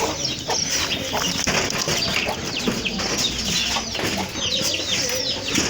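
Farm birds calling: many short, high chirps falling in pitch, over clucking poultry.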